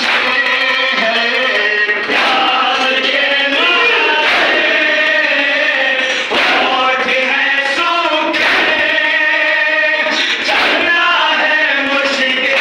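A crowd of men chanting a nauha in unison, with a sharp collective chest-beat (matam) about every two seconds in time with the chant.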